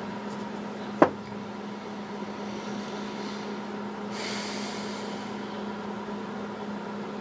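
A steady low hum of room tone, broken by one sharp click about a second in and a short soft hiss about four seconds in.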